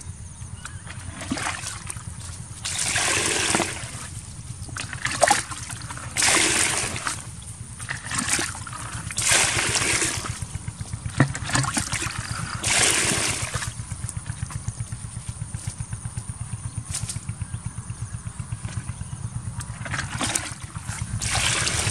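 A plastic bucket scooping muddy water from a shallow pond and tipping it out, splashing and pouring in several bursts about a second long, over a steady low rumble.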